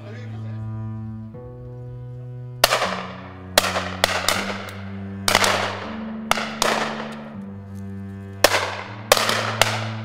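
Shotguns firing at simulated game-bird targets: about ten sharp shots from about two and a half seconds in, several in quick pairs. Under the shots runs background music of sustained bowed-string chords.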